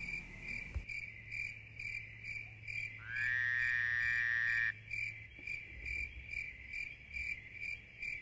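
A small animal chirping steadily, about two chirps a second. About three seconds in comes one drawn-out high note with several overtones, lasting under two seconds.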